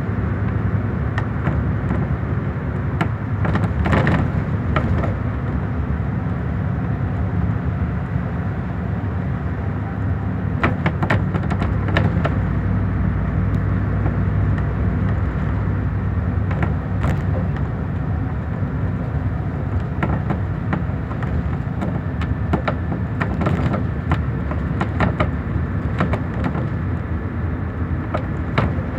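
Scania DC9 310 hp five-cylinder diesel engine of a Scania K114IB bus running steadily under way, heard from inside the passenger cabin, with occasional short knocks and rattles.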